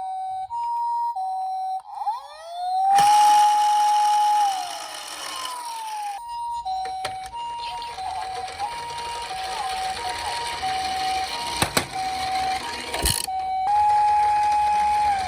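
Emergency-vehicle sirens: the Japanese ambulance's two-note 'pee-poh' siren alternates with a wailing siren that rises, holds and falls, about 2 to 3 seconds in and again near the end. A rushing noise runs under most of it, with two sharp knocks near the end.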